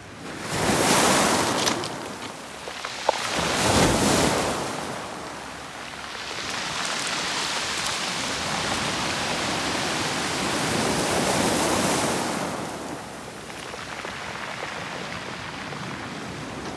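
Sea waves breaking and washing over a pebble beach, coming in surges: two short ones in the first few seconds, then a longer one that swells and dies away about two-thirds of the way through.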